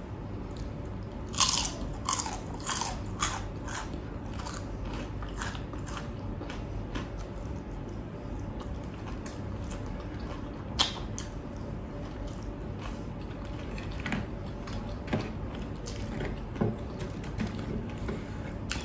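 Close-miked biting and chewing of crunchy food: a quick run of loud crunches about a second in, then slower, scattered crunches and chewing, with one sharper crunch near the middle.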